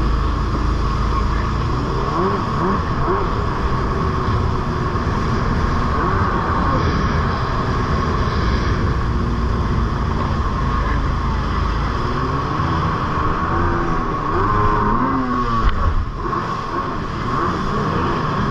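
Jet ski engine running at speed, its pitch rising and falling as it rides over boat wake, over a wash of rushing water; the sound dips briefly near the end.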